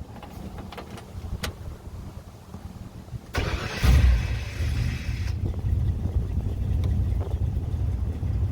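A 1965 Ford Ranchero's engine is cranked by the starter a little over three seconds in and catches within about two seconds, then idles steadily. A few light clicks come before it.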